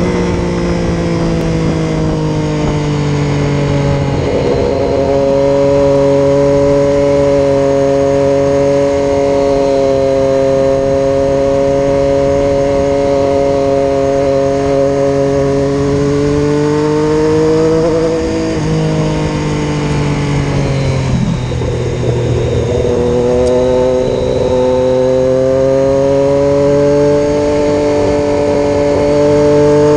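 Triumph Daytona 675R's three-cylinder engine running under steady throttle on the move, its pitch slowly climbing. About two-thirds of the way through, the note drops and briefly dips as the throttle eases, then picks up and climbs again.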